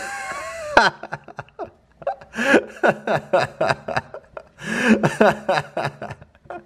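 A person laughing hard in several bursts, after a short high cry at the start.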